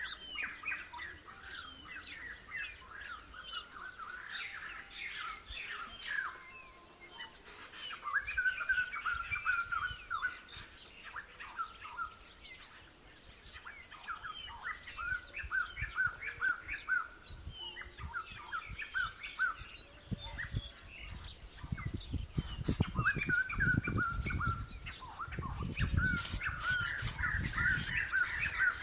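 Several birds chirping and calling throughout, including quick runs of repeated notes. From about twenty seconds in, low scraping and thumping sounds come in underneath.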